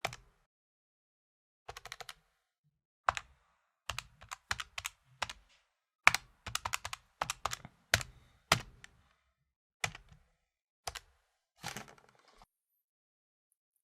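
Calculator keys being tapped by finger: irregular single clicks and quick runs of key presses, busiest in the middle, stopping shortly before the end.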